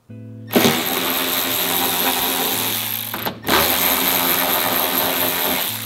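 A power ratchet spinning a bolt in a vehicle's steel floor pan, backing out seat-mounting hardware. It runs in two spells of about three and two and a half seconds, with a brief stop between them.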